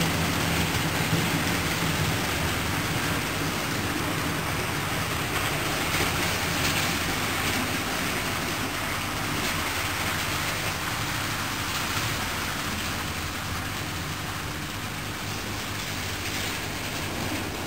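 Model train running on a layout track: a steady rushing noise with a faint low hum.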